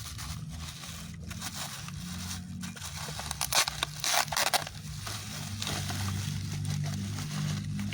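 Thick bubble wrap and plastic packaging being handled and pulled open, crinkling and crackling unevenly, loudest about three to four and a half seconds in.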